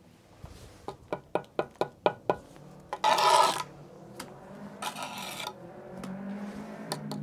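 Masonry handwork on a brick column: a run of light ticks, then two short, loud scrapes as mortar is worked in and around a notched brick cavity. A faint low hum comes up in the background in the second half.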